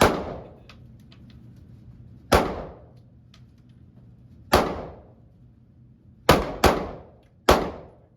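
Handgun shots fired one at a time: six sharp reports, each with a short echoing ring, irregularly spaced, with two in quick succession about two-thirds of the way through.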